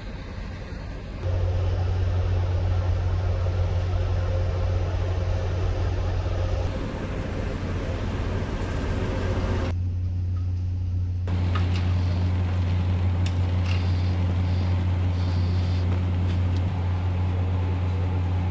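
Diesel train engine running with a steady low hum under general platform noise, the hum starting up about a second in.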